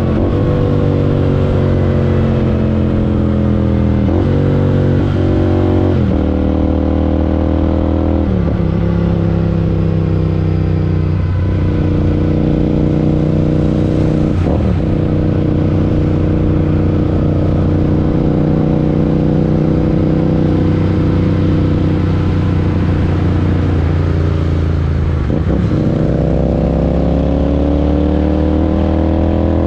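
Parallel-twin motorcycle engine running under way, its pitch broken by several gear changes. It holds a steady cruise for a long stretch in the middle and climbs as it accelerates near the end.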